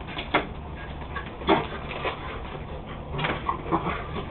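Two dogs playing, with a handful of short, sharp yips and whimpers spread unevenly through.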